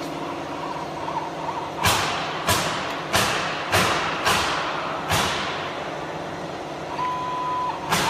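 A run of sharp knocks, about six in three seconds, each ringing out briefly, followed near the end by a short steady tone.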